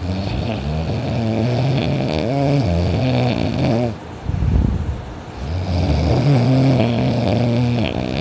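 A person snoring loudly and heavily in deep sleep while lying on their back. There are two long snores, each a deep pulsing drone of about three to four seconds, with a shorter, noisier breath between them about four seconds in.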